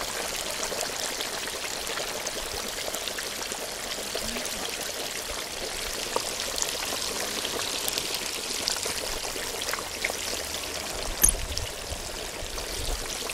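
A whole turkey deep frying in a pot of hot oil: a steady sizzle with scattered crackles. A sharp click with a low thump about eleven seconds in.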